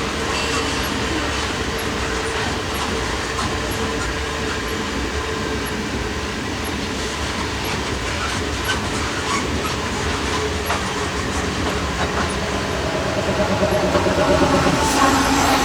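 Iron ore freight train rolling by on the rails with a steady rumble and wheels clicking over the rail joints. It grows louder near the end.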